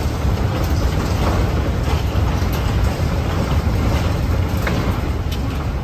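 Wheeled steel stage-deck frames being pushed across a concrete floor: a steady low rumble of casters rolling, with a few light clicks of metal.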